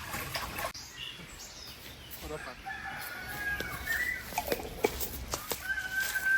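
A rooster crowing, starting about halfway in and ending on a long held note, with a few scattered knocks.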